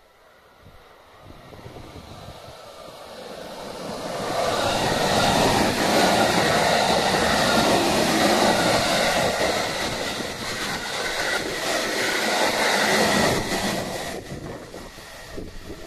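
JR West Special Rapid electric multiple-unit train passing at speed. It grows from a distant rumble into a loud rush of wheels on rail for about ten seconds, with some clacking late in the pass, then drops away quickly near the end.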